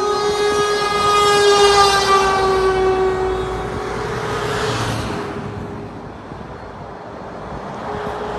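A coach's air horn blowing one long held note that sags slightly in pitch, fading out about four seconds in. A vehicle then rushes past, and the horn sounds again near the end.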